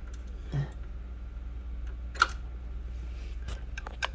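Clicks from the plastic and metal parts of a copier's bypass tray roller assembly being handled: one sharp click about two seconds in and a few lighter ones near the end, over a steady low hum.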